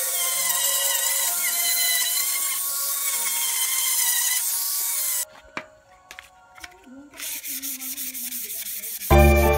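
Electric angle grinder with a sanding disc running against a metal fan blade, a steady whine with hiss, which cuts off suddenly about five seconds in. Then sandpaper rubbing on the blade by hand in short strokes, and loud electronic music starts near the end.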